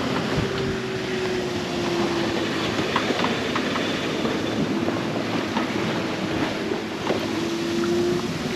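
Sailboat underway at sea: a steady rush of water and wind with scattered clicks and rattles, over a steady hum that wavers slightly in pitch.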